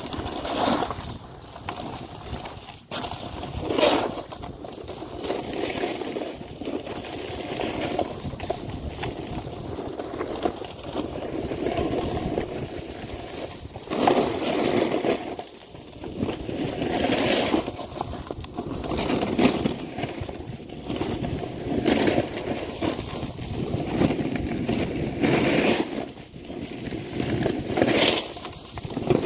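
Snowboard edge scraping and hissing over packed snow, swelling with each turn about every two to three seconds, over a steady rushing noise.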